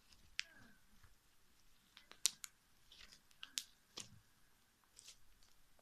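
Scattered faint clicks and crackles, a few of them sharp, from puffy slime being squeezed and pulled by hand.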